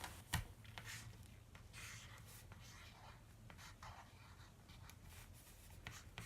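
Faint scratching of writing on paper: a series of short, soft strokes, with one sharp click about a third of a second in.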